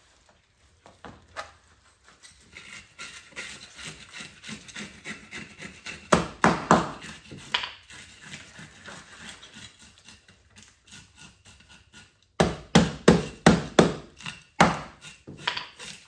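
Knife chopping through fish on a cutting board: a short cluster of hard strokes about six seconds in and a longer run of about three strokes a second from about twelve seconds on, with lighter tapping and scraping in between.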